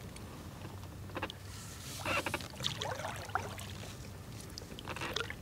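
Kayak paddle in the water: a cluster of splashes about two seconds in and another near the end.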